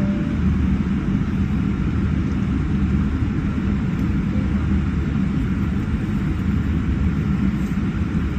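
Cabin noise of a Boeing 787-8 taxiing: a steady low rumble from the jet engines at idle and the airframe rolling along the taxiway.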